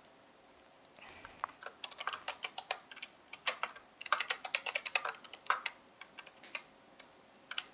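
Typing on a computer keyboard: a quick, uneven run of keystroke clicks that starts about a second in and stops about a second before the end.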